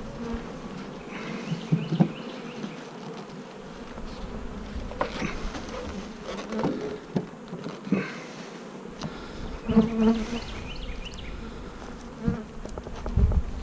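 Mass of package honeybees buzzing in a steady drone around an open hive, with a few knocks and thumps, the loudest about ten seconds in and near the end.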